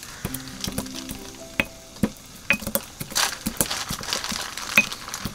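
Wooden pestle crushing dried Sichuan peppercorns in a ceramic mortar: irregular crunches and clicks. Soft background music plays a few held notes.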